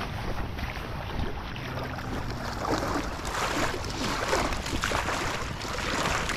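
Creek water running, an even rushing noise that gets louder about three seconds in.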